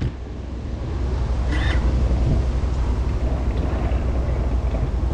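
Wind buffeting a GoPro's microphone: a steady low rumble.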